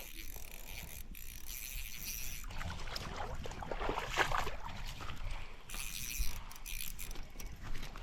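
Small irregular clicks and rattles of fishing tackle being handled: a spinning reel and line being worked while a small trout is brought in and dealt with.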